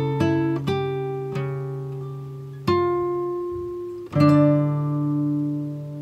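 Background music on plucked guitar: single notes ringing out and fading, with a louder strummed chord about four seconds in.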